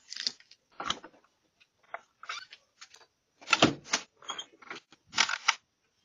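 Clicks, knocks and rattles of a front door and its lock, with keys jangling, heard through a doorbell camera's microphone; the heaviest knocks come about three and a half and five seconds in.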